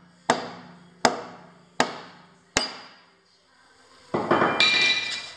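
Four hammer blows, about three-quarters of a second apart and each ringing briefly, drive the steel spindle out of an LT-10M lathe headstock. About four seconds in comes a loud metallic clatter lasting about a second.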